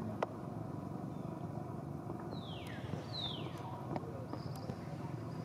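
Two short, high animal calls, each sliding down in pitch, about a second apart in the middle, over a steady low rumble of background noise, with a single sharp click near the start.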